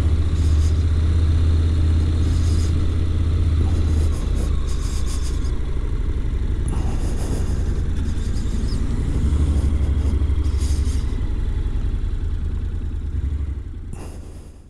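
Honda NC700X's parallel-twin engine running at low speed under a gentle throttle, a steady low note that rises and eases a little, then fades out near the end.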